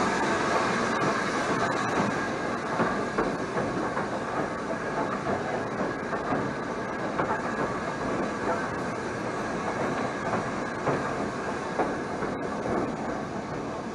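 Steady running noise of a BR Standard 9F steam locomotive rolling slowly along the track, with the wheels clicking over rail joints now and then.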